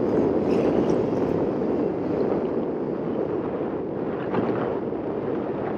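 Strong wind buffeting the microphone in a steady rush, with ocean waves washing below.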